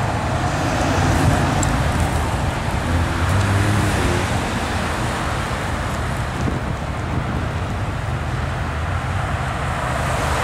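Sports car engine pulling away with a steady low note, mixed with passing road traffic.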